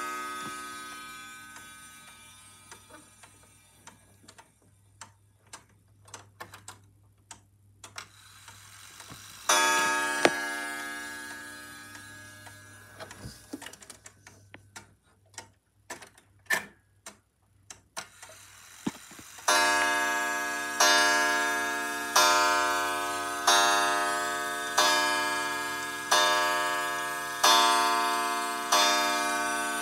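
Parliament 31-day chime wall clock: a struck tone dies away, then the movement clicks and ticks while the hands are turned by hand. A single ringing strike comes about ten seconds in, and from about twenty seconds the clock strikes the hour, one ringing stroke roughly every 1.2 seconds, each dying away before the next.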